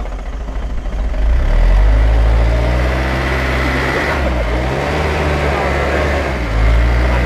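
Truck engine running steadily, growing louder about a second in and then holding at a constant pitch.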